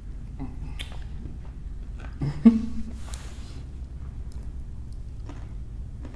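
Close-miked eating: chewing and biting into a chicken shawarma wrap, with wet mouth sounds and small clicks. There is a brief louder mouth sound about two and a half seconds in.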